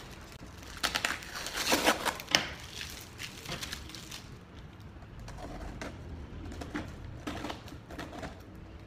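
Plastic packaging crinkling and packing tape being cut and torn on a cardboard box. The loudest crackling comes between about one and two and a half seconds in, followed by scattered lighter clicks and rustles.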